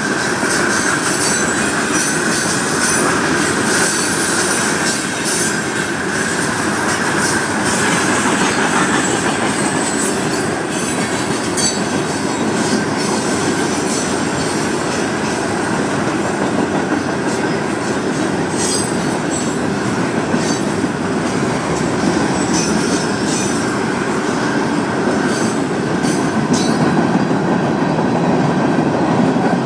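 Florida East Coast Railway freight cars rolling past at speed, first open-top rock hoppers and then intermodal trailers on flatcars: a steady dense rumble of wheels on rail with irregular clicks over the joints, and a steady high wheel squeal over the first several seconds.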